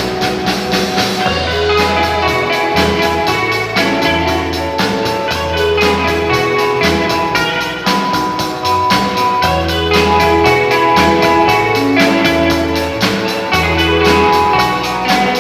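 Instrumental break of a slow Latin ballad: band music with bass, drums, tambourine and guitar, no singing.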